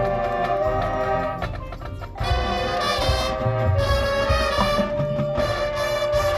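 High school marching band playing its competition show: a quieter passage with percussion hits, then the full brass section comes in about two seconds in and holds sustained chords.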